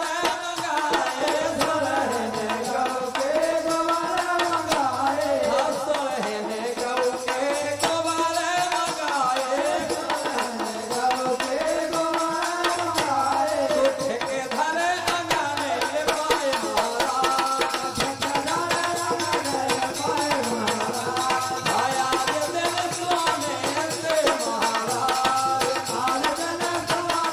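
Live Bundeli folk bhajan: a male voice sings a wavering melody through a microphone over a steady hand-drum rhythm.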